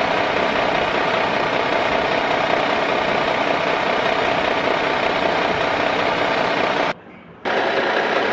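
Steady engine running sound, even in level throughout. It cuts out abruptly for about half a second near the end, then resumes.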